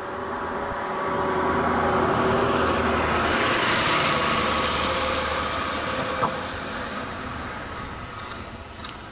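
A road vehicle passing close by: engine hum and tyre noise swell over the first couple of seconds, hold, then slowly fade away. A single brief click about six seconds in.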